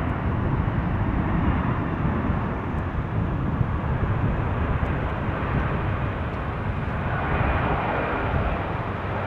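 Boeing 747-400F freighter's jet engines on landing, a loud steady rush over a fluctuating low rumble. The rushing grows stronger about seven seconds in, then eases near the end.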